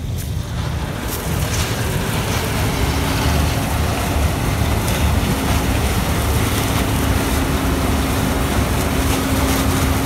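New Holland CX6090 combine harvester running as it harvests sunflower. It is a steady low engine rumble that grows louder over the first few seconds as the machine approaches, with a steady hum joining about two seconds in.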